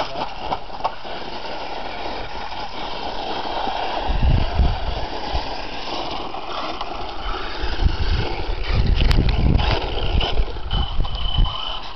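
Traxxas 1/16 E-Revo VXL RC truck running hard on loose dirt: its brushless electric motor whines high while the tyres scrabble and throw dirt and grit, with scattered small clicks. Heavy low rumbles come about four seconds in and again from about eight to ten seconds, and a brief steady high whine near the end.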